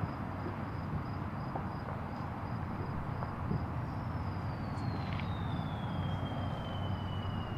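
Steady rumble of highway traffic under crickets chirping in a fast, even pulse. About halfway through, a thin high whistle begins and slowly falls in pitch.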